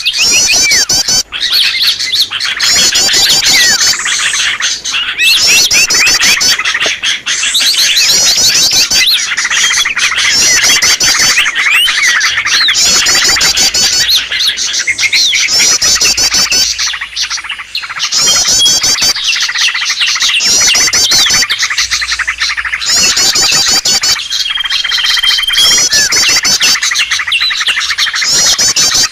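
A bird-lure recording of small songbirds chirping and trilling densely over one another. Short bursts of rapid, high trills repeat every couple of seconds over a steady chatter of chirps. It is made to call in small wild birds.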